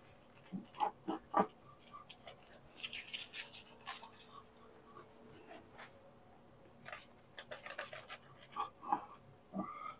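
A knife slicing through a sheet of puff pastry on baking paper, giving scattered soft scrapes and paper crackles. A few short squeaks come through about a second in and again near the end, the last one rising.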